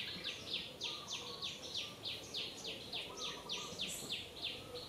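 An insect's pulsed buzzing call, short high-pitched buzzes repeating about four to five times a second without a break.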